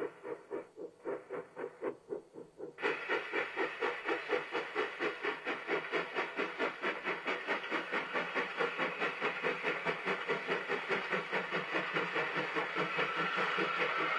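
NSW 50 class steam locomotive 5069 under way, its exhaust beating in steady chuffs about three a second over a hiss of steam. The beats turn suddenly louder and harsher about three seconds in.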